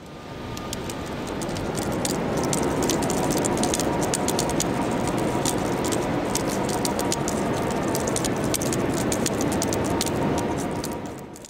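Line winch reeling in a fishing longline: a steady mechanical whine and rush with rapid rattling ticks. It fades in at the start and fades out near the end.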